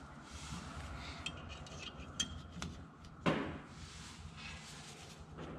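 Small metal clicks and ticks of drum brake hold-down hardware being handled against the brake shoe and backing plate, with one sharper clink about three seconds in.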